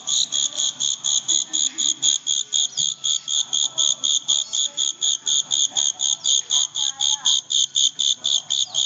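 Caged Chinese bush crickets (guoguo katydids) singing: a loud, even train of shrill, buzzy chirps, about five a second.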